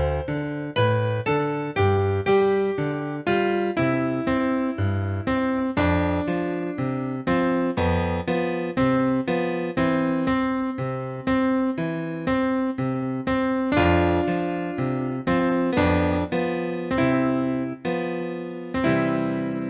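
Background piano music: a steady run of single notes with a held chord near the end.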